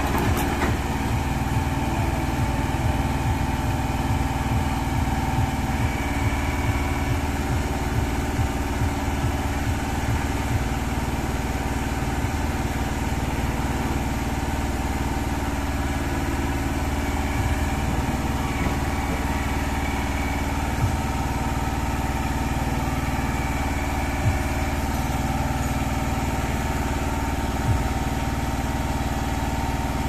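IHI IS-010A mini excavator's two-cylinder Isuzu S2K70C diesel engine running steadily while the boom and arm are worked.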